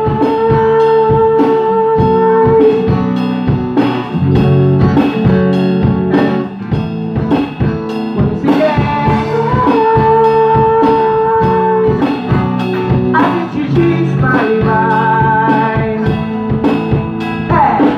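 Band music between sung lines: a drum kit keeping a steady beat under guitar and bass, with long held melody notes in two stretches.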